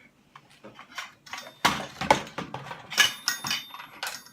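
Hard plastic toy pieces and packaging clattering and clicking as they are handled, in irregular knocks that are loudest about two seconds in and again a second later.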